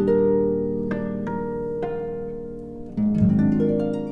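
Instrumental intro music of plucked, ringing string notes, with a fuller low chord coming in about three seconds in.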